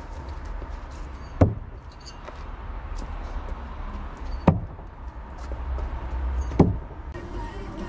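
Throwing knives hitting a wooden log target three times, a couple of seconds apart, each a sharp thunk as the blade strikes the wood.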